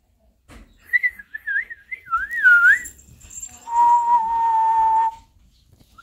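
A person whistling: a warbling whistle that wavers up and down for about two seconds, then, after a short gap, one steady held note for about a second and a half.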